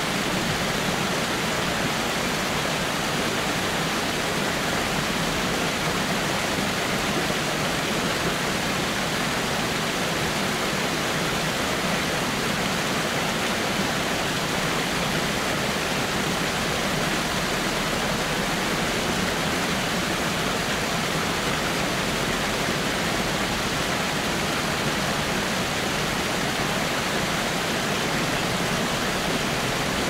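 Waterfall: a steady, even rush of falling water with no change in level.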